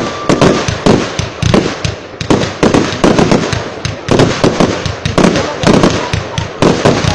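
Fireworks display: a fast, unbroken run of loud bangs, several a second, easing briefly about two seconds in.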